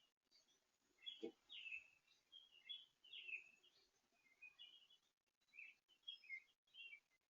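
Small birds chirping faintly at a feeder, many short chirps overlapping, with a brief low knock about a second in.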